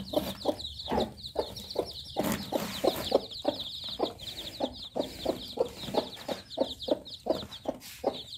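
A brood of newly hatched chicks peeping continuously in high, falling notes, while a mother hen clucks low and steadily among them, about three clucks a second.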